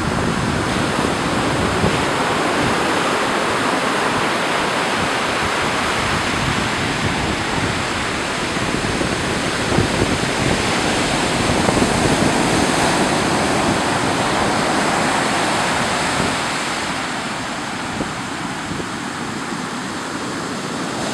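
Ocean surf breaking and washing up a sandy beach: a steady rush of water that swells and eases with the waves and softens for the last few seconds.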